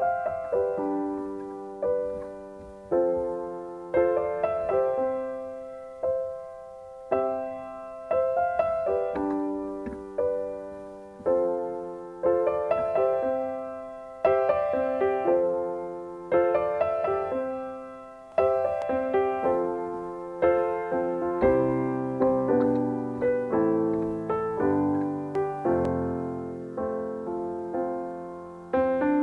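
Solo piano background music: slow chords struck and left to ring and fade, with lower bass notes joining about two-thirds of the way through.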